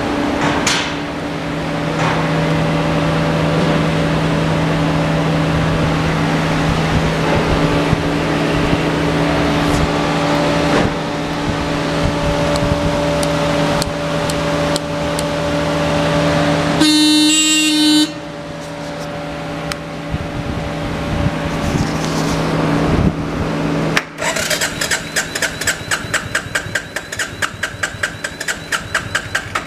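Suzuki Savage 650 motorcycle: a steady hum, then a short electric horn blast about seventeen seconds in. In the last few seconds the electric starter cranks the single-cylinder engine with a fast, even pulse.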